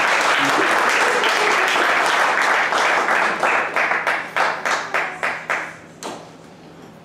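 Live audience applauding, dense at first, then thinning to scattered individual claps and dying away about six seconds in.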